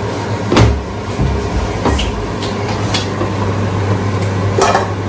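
A cooking spoon knocking and scraping against pots on a stovetop, a few separate clinks, over a steady low hum.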